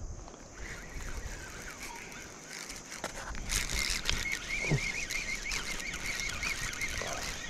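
Spinning fishing reel being cranked to retrieve line against a hooked fish: a wavering whir that flutters in pitch as the handle turns, with a few sharp handling clicks partway through.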